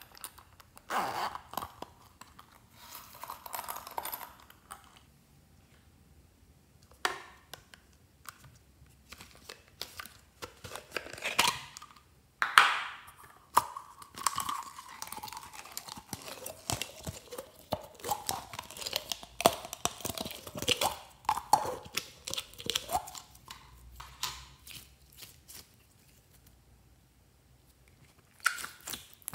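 Hands handling and opening plastic containers, a red makeup compact and a clear plastic tub, making irregular clicks, crackles and scraping, with squeaky rubbing in the middle. Near the end comes a burst of sticky squishing as a handful of glittery red slime is squeezed.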